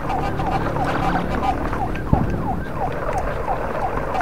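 Siren in a fast yelp pattern: quick falling sweeps repeated about three times a second, over a steady low rumble, with a single thump about two seconds in.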